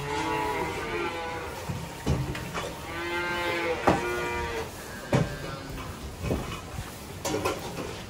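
Calves mooing: two long calls, one at the start and a stronger one from about two and a half to four and a half seconds in, with scattered knocks between them.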